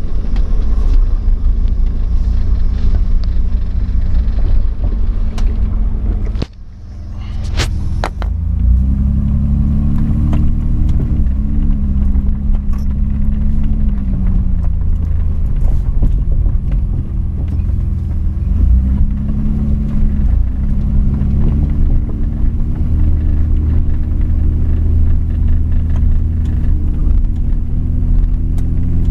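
Truck riding on Rockwell 2.5-ton axles, heard inside the cab while driving: a heavy low rumble and chatter under an engine note that rises and falls several times. About six seconds in the sound dips briefly, and a few sharp knocks follow.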